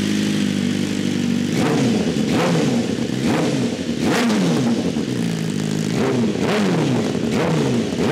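BMW M1000R inline-four motorcycle engine with an Arrow titanium header and LeoVince stainless slip-on exhaust, idling and then blipped on the throttle from about a second and a half in. The revs rise and drop back quickly, roughly once a second. It is on its first start after the exhaust install and has no tune yet.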